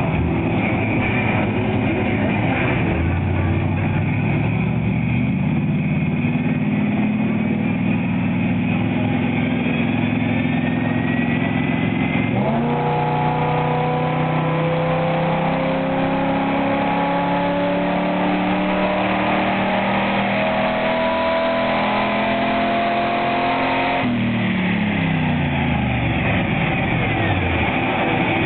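Chevrolet Camaro's engine making a full-throttle pull on a chassis dynamometer. The engine note climbs steadily for about ten seconds, drops sharply at an upshift, then climbs again for another ten seconds. Near the end the throttle closes and the revs fall away.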